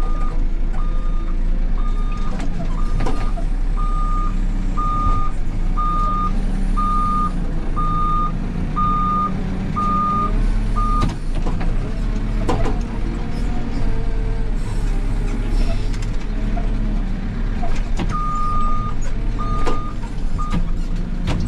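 Backhoe loader's reversing alarm beeping about once a second over the machine's steady engine. The beeping stops about halfway through and comes back for three beeps near the end, with a few knocks in between.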